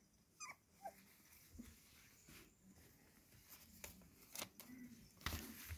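Quiet rustling and small ticks of young cocker spaniel puppies shifting on fleece bedding, with two brief falling squeaks near the start and a louder knock near the end.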